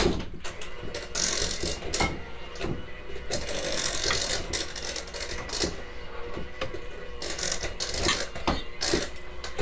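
T-bone steak sizzling in melted butter in a frying pan, with the hiss rising and falling in patches. Metal tongs click and scrape against the pan as the steak is lifted out.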